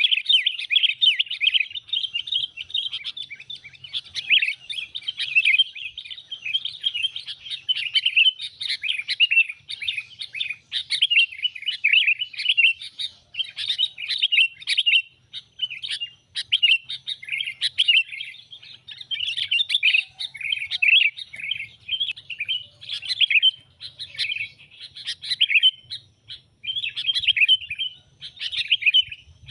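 Sooty-headed bulbul (kutilang) calling in a dense, rapid run of sharp chattering chirps with only brief breaks. It is a lure call recording played to draw wild bulbuls in for trapping.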